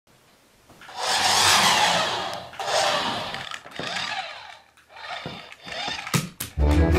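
Small electric motor of a remote-control toy mouse whirring in several uneven bursts as it drives over the floor. Near the end come a couple of sharp knocks, and music starts just before the end.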